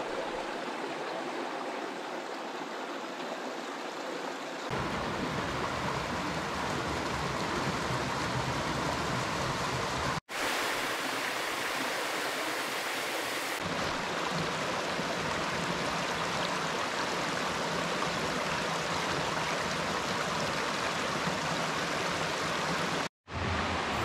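Steady rush of a mountain stream flowing over rocks, with two brief dropouts where the sound cuts off for an instant.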